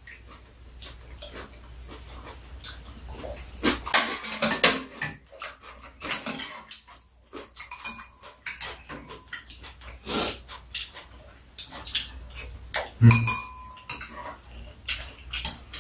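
Metal spoons and chopsticks clicking and scraping against ceramic bowls at a meal, in irregular, scattered clinks, with chewing and slurping in between.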